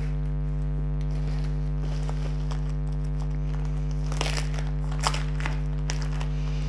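Plastic wrapping crinkling as a kit package is handled, in a couple of short bursts around four and five seconds in, over a steady electrical hum.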